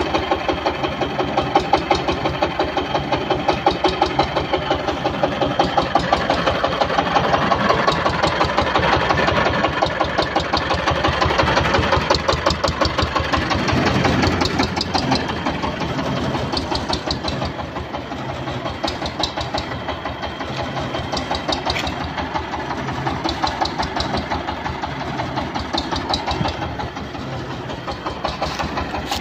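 Yanmar TS230H single-cylinder diesel engine running steadily with a rapid, even knock of its firing strokes, driving a YMM 20 rice huller.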